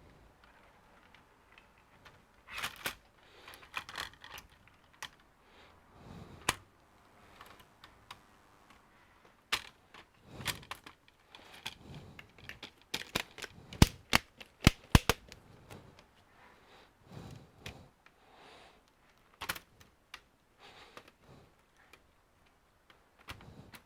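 Irregular clicks, taps and short rustles of hands working on a laptop and its plastic parts, with a quick run of sharp clicks about 14 seconds in.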